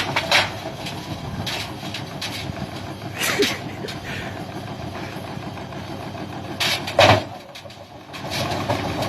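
Steady mechanical running broken by a few sharp knocks and bangs, the loudest a double bang about seven seconds in.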